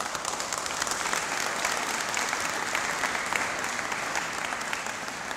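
A group of people applauding: steady clapping that starts as the speech ends and eases off slightly near the end.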